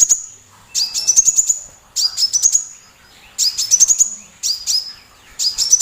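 Sunbird (Indonesian 'kolibri') singing: a series of short, loud phrases about a second apart, each a quick run of high chirps rising in pitch. The song cuts off abruptly at the very end.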